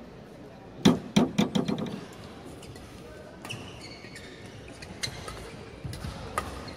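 Badminton play on an indoor court: sharp racket strikes on the shuttlecock and players' footwork on the court, with a cluster of loud knocks and thuds about a second in, then scattered single hits and short shoe squeaks.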